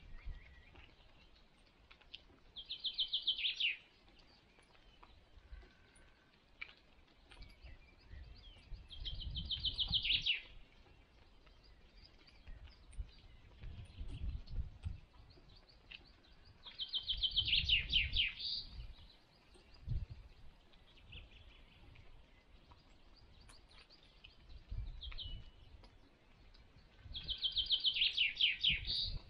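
A songbird sings a short, fast trill that drops in pitch at the end. The song comes four times, about every seven seconds, over a faint low rumble.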